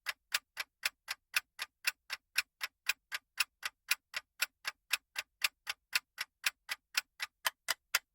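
Clock-tick countdown sound effect, even sharp ticks about four a second, marking the seconds left to guess a quiz answer.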